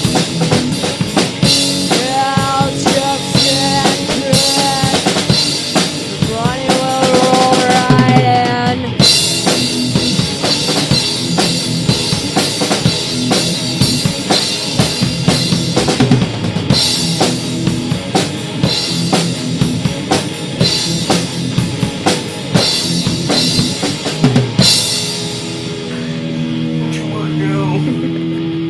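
Punk rock band playing an instrumental stretch: a drum kit pounding bass drum and snare under a fuzzy electric guitar. About 25 seconds in the drums stop and a few single guitar notes ring on alone.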